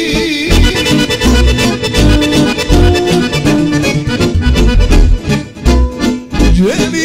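Live band playing an instrumental break, an accordion-sounding lead melody over a pounding bass and drum beat.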